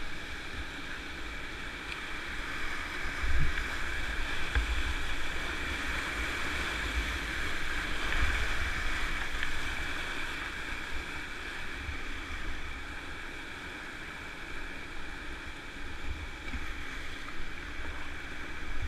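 Whitewater rapids rushing steadily around a kayak running down a river, swelling a little louder around the middle, with a few low thumps here and there.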